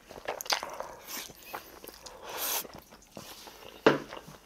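A person slurping spicy buldak instant noodles and chewing them: wet mouth clicks and smacks, with a longer slurp about two and a half seconds in.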